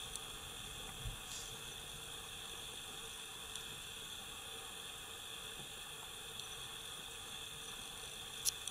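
Faint outdoor ambience: a steady hiss with thin high-pitched tones, a soft thump about a second in and a couple of sharp clicks near the end.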